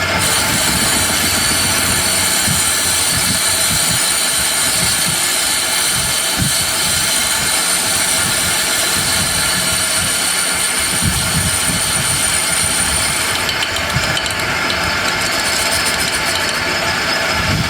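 Lathe running, with a loud, steady, high-pitched metallic whine and hiss from the tool working the spinning workpiece. The highest part of the whine drops away about thirteen seconds in.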